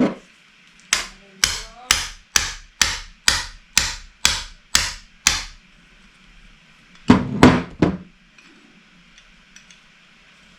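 Hammer blows on a bushing removal tool, knocking the worn bush out of a flat pedal's axle bore. One strike comes at the start, then a steady run of about ten strikes, roughly two a second, and after a short pause a quick flurry of three or four.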